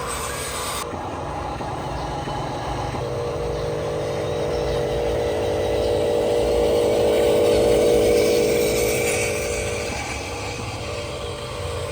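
Radio-controlled model trucks driving: a steady electric motor and gear whine that swells to its loudest about eight seconds in, then fades.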